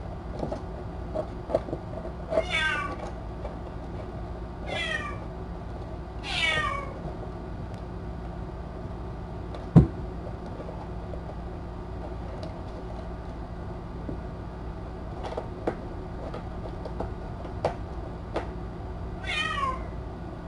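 Kitten meowing four times, each call short and falling in pitch: three close together in the first seven seconds, one near the end. About ten seconds in there is a single sharp knock, with faint scattered taps and a steady low hum underneath.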